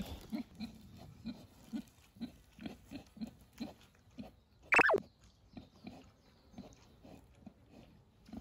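Domestic pigs grunting softly and steadily while rooting and feeding, about two to three grunts a second. About five seconds in, one pig gives a single loud squeal that falls sharply in pitch.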